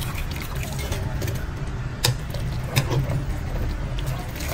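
Wire mesh skimmer lifting blanched kale leaves out of a pan of hot water, with water sloshing and dripping back and a couple of sharp metal taps about two and about three seconds in. A steady low hum runs underneath.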